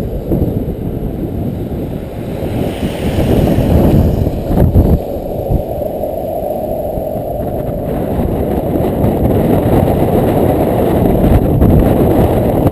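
Storm wind buffeting the microphone as a loud, low rumbling rush that grows stronger after the first couple of seconds.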